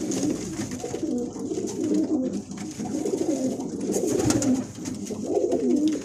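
Several domestic pigeons cooing, their wavering calls overlapping. There is a brief rustle about four seconds in.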